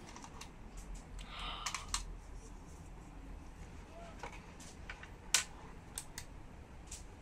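Scattered light clicks and taps from handling a Logitech G500 mouse and its weight accessories, with one sharper click a little past the middle.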